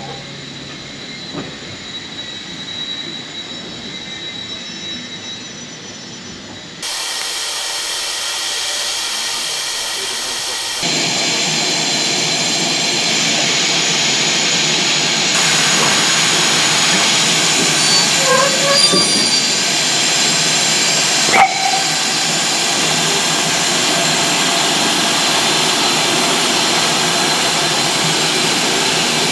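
Steam locomotive standing with steam hissing steadily from it, the hiss getting louder in steps about seven and eleven seconds in. A single sharp click about two-thirds of the way through.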